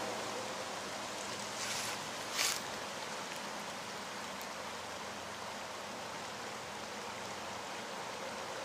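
Steady rushing of flowing river water, with two short hissy bursts about two seconds in.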